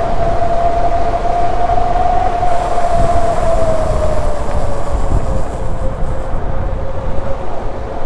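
Yadea Trooper 01 fat-tire e-bike under way: its 750-watt electric motor gives a steady whine that drops a little in pitch about halfway through, over tyre noise and wind rumbling on the microphone.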